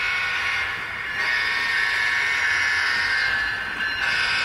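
Diesel locomotive sound from a passing train, a thin mid-pitched rushing sound that dips briefly about a second in and again near the end.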